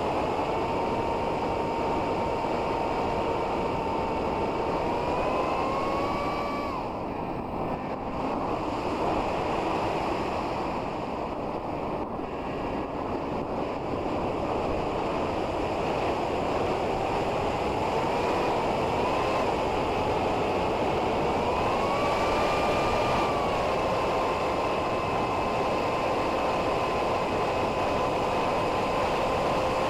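Electric flying wing's brushless motor and propeller whining over heavy wind rush, as heard from the onboard camera in flight. The whine rises, drops away for several seconds as the throttle eases off, leaving mostly wind, then climbs back up and holds steady.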